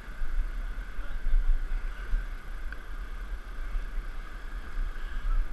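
Steady rush of river water pouring over a small rapid, with a deep, uneven rumble underneath.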